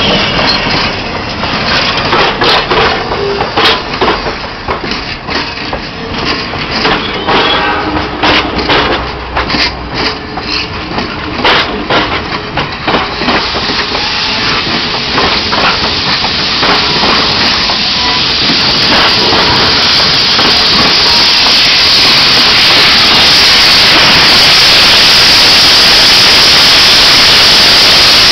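Passenger coaches rolling past with wheels clicking over rail joints, then a loud steady hiss that builds through the second half as steam locomotive 7470 draws alongside.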